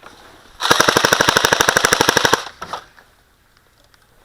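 Airsoft gun firing one full-auto burst of about fifteen shots a second, lasting nearly two seconds.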